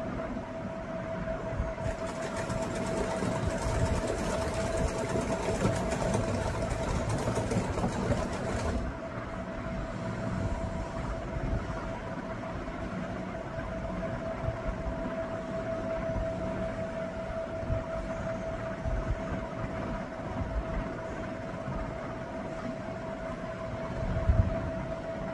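Old-style domestic sewing machine stitching a seam, its mechanism clattering, louder and brighter from about two seconds in until about nine seconds, then running on more quietly. A steady hum sounds underneath, and there is a short knock near the end.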